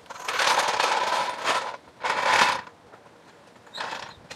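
Metal jacking gear being worked under a car: a long burst of metallic rattling and scraping, a shorter one, then a brief rattle near the end.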